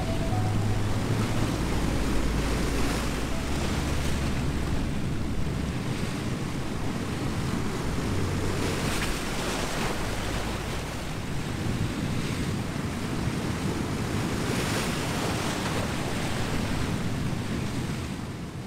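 Ocean surf washing and breaking over rocks, a steady rushing with louder swells about nine and fifteen seconds in. Wind is buffeting the microphone.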